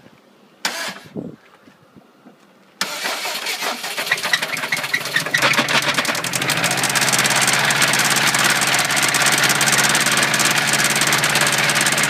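The 2003 Subaru WRX's turbocharged flat-four engine is cranked and fires about three seconds in, then settles into a steady idle. It is a really nasty sounding motor: the car is sold with a bad engine whose noise was not cured by a new oil pump.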